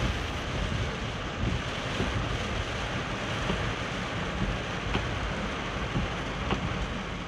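Heavy rain falling on the car's roof and windscreen, heard from inside the moving car as a steady hiss mixed with wet-road noise from the tyres.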